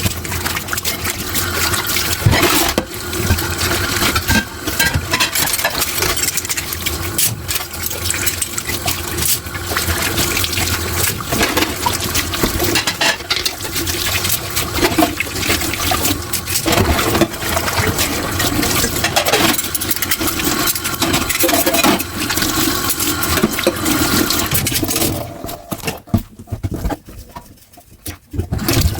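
Tap water running and splashing into a kitchen sink while dishes are washed, with frequent light clinks and knocks of dishes against each other and the sink. The water sound falls away for a few seconds near the end.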